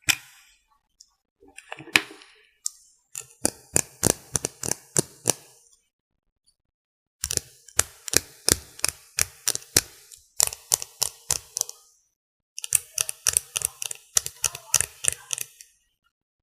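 Makeup being applied for contouring, heard as three runs of quick, sharp taps, about four or five a second, with short pauses between the runs.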